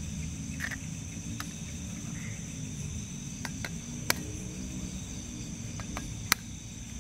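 Crickets trilling steadily at night, with a few sharp clicks over them; the two loudest come about four and six seconds in.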